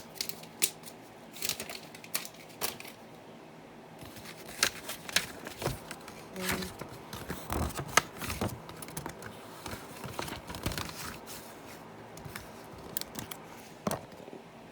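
Hands handling a paper instruction booklet and plastic parts bags, with irregular rustling, crinkling and light clicks.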